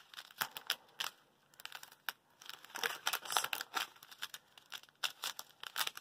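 Small clear plastic bags of diamond painting drills crinkling and rustling as they are handled, in short irregular bursts, busiest about halfway through.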